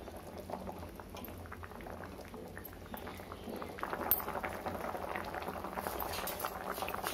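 Thick spicy gravy with gram-flour thopa pieces simmering in a kadhai, bubbling in many quick small pops. It is being cooked down to thicken. The popping grows busier about four seconds in.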